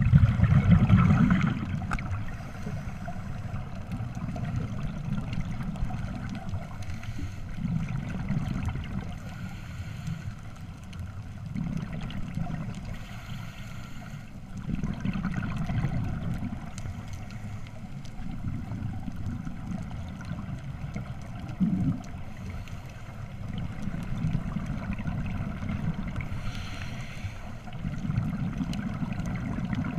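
Underwater sound of scuba divers breathing through regulators: exhaled bubbles gurgle in surges every few seconds over a steady underwater hiss, the loudest surge right at the start.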